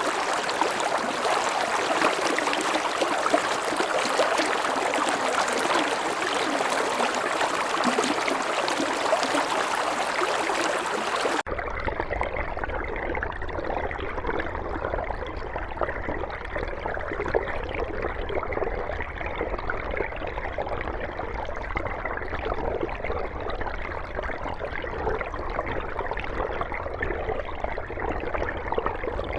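Water of a mountain stream rushing and splashing over rocks as a steady, bright hiss. About eleven seconds in it cuts abruptly to a different recording of flowing water, duller and deeper with a low rumble.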